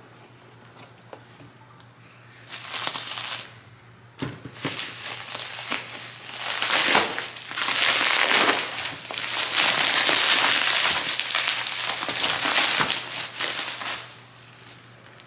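Plastic bubble wrap crinkling and rustling as it is handled and pulled apart by hand: a few short bursts in the first seconds, then loud continuous crinkling from about six seconds in until shortly before the end.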